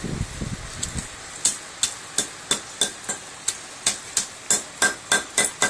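Hammer blows on a TV deflection yoke, struck over and over about three times a second, each a sharp hit with a ringing tone, to break the yoke apart and free its copper winding. The hitting starts about a second in.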